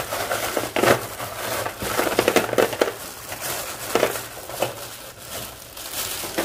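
Ceramic bio-rings poured from a plastic bag into an aquarium filter compartment, clattering against each other and the tray in bursts of rattling clicks, with the bag crinkling.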